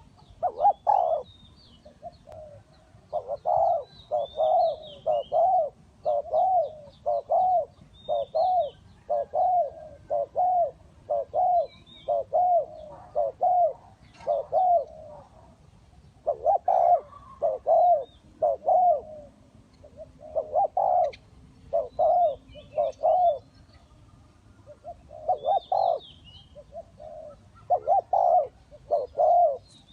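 Spotted dove cooing over and over in runs of hoarse coos with short pauses between phrases. Faint high chirps of smaller birds sound in the background.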